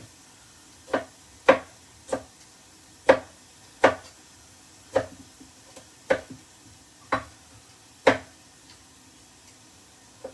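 Kitchen knife slicing through tomatoes and knocking on a chopping board: about ten separate chops at an unhurried, uneven pace, roughly one a second.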